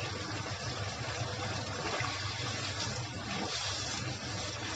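Chicken and vegetables simmering in a wok on a gas stove: a steady bubbling hiss over a low hum.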